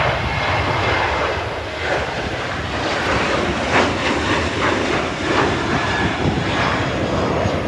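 Jet airliner's engines at takeoff thrust as it lifts off and climbs out, a loud, steady roar.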